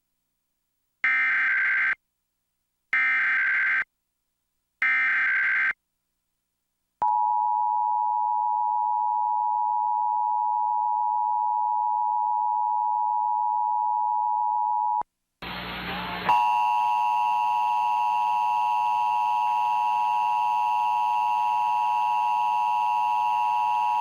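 Emergency Alert System tones: three short warbling digital data bursts about a second apart (the SAME header), then the EAS attention signal, a steady two-note tone held about eight seconds. After a brief noisy burst, a loud, steady buzzing tone begins and holds to the end.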